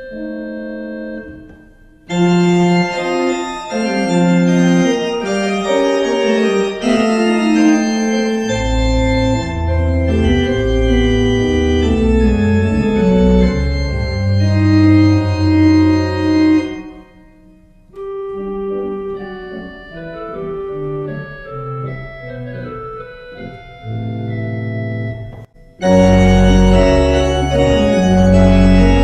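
Church organ playing a postlude in sustained chords. The phrases are broken by short pauses, a deep pedal bass line comes in about a third of the way through, and a fuller, louder passage starts near the end.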